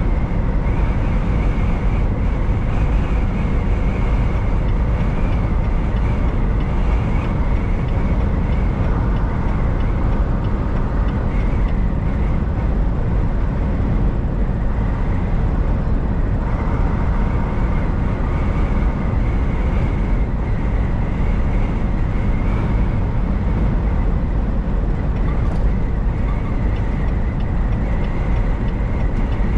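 Semi-truck cruising at a steady speed on the highway: a steady, loud, low rumble of engine and road noise with no change.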